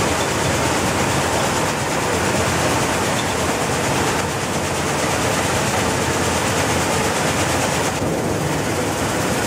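Vibrating paddy-cleaning sieve running in a rice mill, a loud steady machine noise with paddy grain pouring off the screen.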